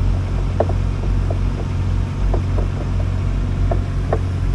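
JCB compact roller's diesel engine idling with a steady low hum, with a few faint clicks as hands work at metal fittings beside the drum.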